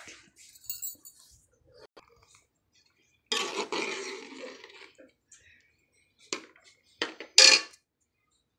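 Steel ladle stirring curry in a steel cooking pot: a scraping stir lasting over a second about three seconds in, then a few sharp metal-on-metal clinks near the end, the last one loud and ringing.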